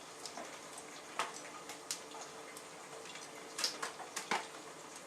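Metal slotted spoon scraping the seeds and stringy pulp out of a halved squash, heard as scattered light clicks and scrapes.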